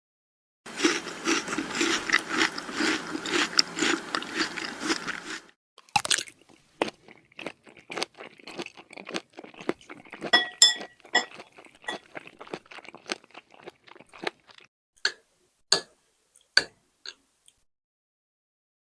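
Close-miked chewing of food: a dense run of crunching for the first five seconds or so, then scattered wet mouth clicks and chews that grow sparser toward the end.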